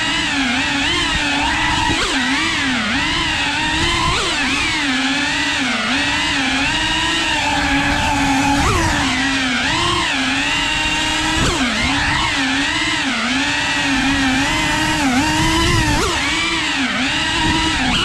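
Cinewhoop FPV quadcopter's brushless motors and ducted propellers whining, the pitch wavering up and down constantly with the throttle, with a few brief sharp upward blips.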